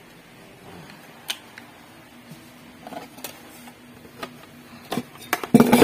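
Metal hand tools clinking and knocking against each other and the wooden box as they are rummaged through in a toolbox. The sharp clicks are scattered at first, with a louder, quicker clatter near the end.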